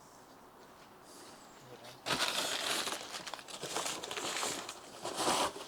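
Parts box being opened by hand, its packaging rustling and crinkling, starting about two seconds in.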